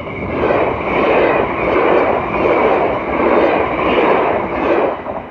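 NS double-deck electric passenger train passing a level crossing at speed: a loud rush of wheel and rail noise that surges and eases about every 0.7 seconds as the coaches and bogies go by, then drops away suddenly as the last coach clears.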